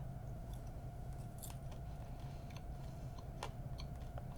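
A person chewing candy-coated popcorn, with scattered faint crunches and clicks over a steady low background hum.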